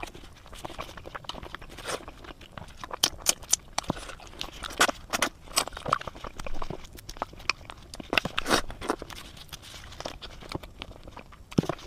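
Close-miked eating: wet lip smacks, sucking and chewing as meat is gnawed off braised bones held by hand, heard as irregular sharp clicks and smacks.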